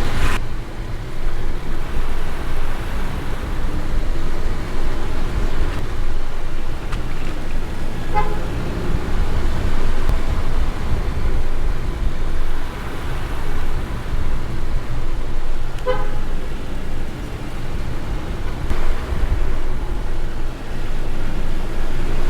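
Car driving with a steady road and tyre rumble and no regular clicking from the wheels, its wheel and brake-disc mating faces freshly cleaned and the wheel refitted. Two short beeps sound, about eight seconds apart.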